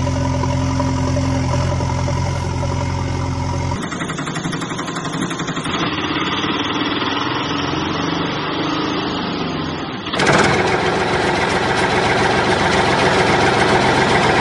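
Vehicle engine sounds laid over the footage, changing twice: first a steady low engine hum, then from about four seconds in a lighter engine running, then from about ten seconds in a louder engine idling.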